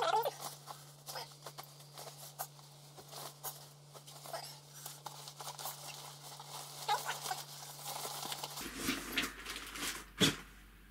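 Rummaging through a nylon sports bag: scattered rustling and crinkling of the bag and its contents, with soft knocks, and a sharper knock about ten seconds in as a football is lifted out.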